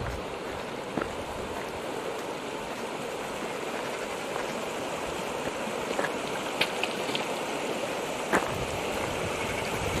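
Shallow mountain stream running over a gravel bed, a steady rushing, with a few faint clicks.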